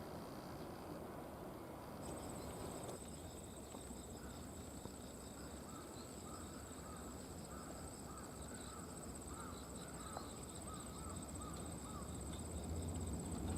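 Insects trilling outdoors: a steady high-pitched trill starts about two seconds in and carries on, with a run of short chirps in the middle, over a low rumble.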